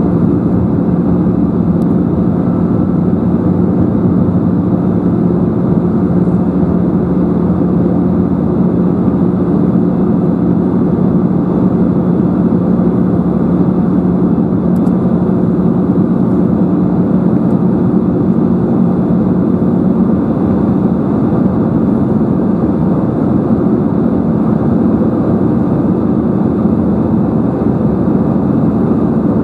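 Steady cabin drone of an Airbus A320-214 in flight, from its CFM56 turbofan engines and the airflow, heard inside the cabin from a window seat over the wing. A low hum stands out in the unchanging noise.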